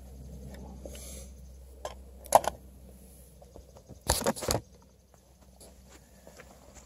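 A few sharp clicks and knocks, with a pair of them a little over two seconds in and a quick cluster of several around four seconds in, over a faint background.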